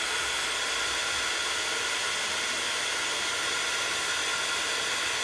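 Embossing heat tool blowing hot air steadily, a constant hiss with a faint whine in it, as it melts embossing powder on cardstock.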